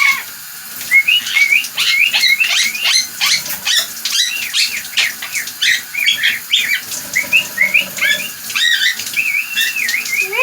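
Quaker parrot (monk parakeet) giving a rapid, loud run of short chirps and squawks, many sliding up and down in pitch.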